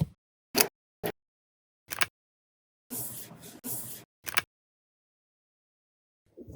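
Paper being handled: a few short, sharp crinkles, then about a second of paper rustling and one more crinkle, with silent gaps between them.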